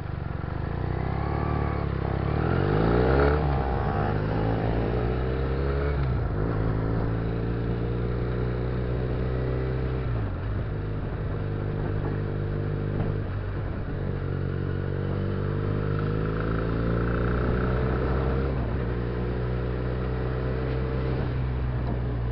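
Benelli TNT300 (BN302) 300 cc parallel-twin motorcycle engine heard from the rider's seat. It idles, then revs rise about two seconds in as the bike pulls away. It shifts up through the gears, the engine note dropping at each change and climbing again.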